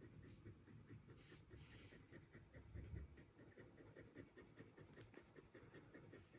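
Faint, quick, even panting of a Border Collie mother dog.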